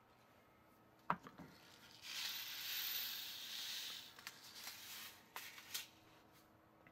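A click about a second in, then rainbow nonpareil sprinkles pouring from a cut plastic packet into a small glass bowl, a fine steady hiss lasting about two seconds. A few light ticks and crinkles of the packet follow.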